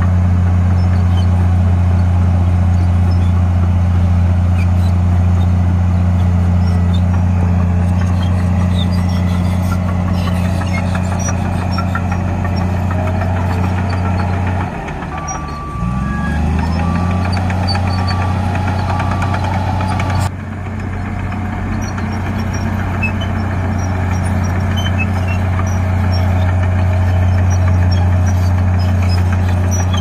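Crawler bulldozer's diesel engine running steadily under load while pushing soil. About halfway through the engine note drops and then climbs back up as the engine is throttled up again, with a back-up alarm beeping for a few seconds.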